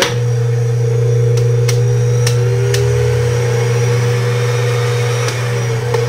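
Oster 12-speed blender's motor running steadily with no jar fitted, its new drive coupling spinning bare, with a few light ticks. It is the test run after the coupling was replaced.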